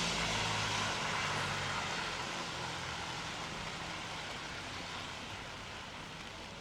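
Engine noise of a passing vehicle, a steady low drone over a broad hiss, fading away as it recedes.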